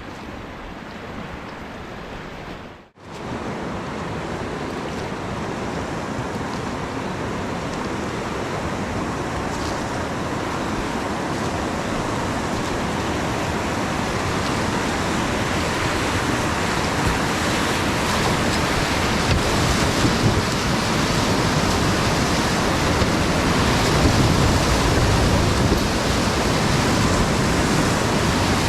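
Steady rushing of a fast mountain river, with a brief break about three seconds in; after it the rush is louder and keeps building gradually.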